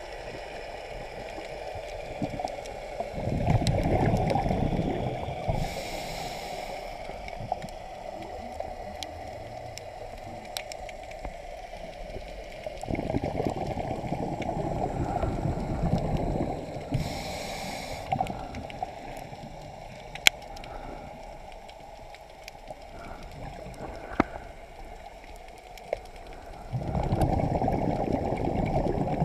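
Scuba regulator breathing heard underwater: three long rushes of exhaust bubbles about ten to fourteen seconds apart, the first two each followed by a short hiss of the regulator on the inhale. Scattered sharp clicks run throughout.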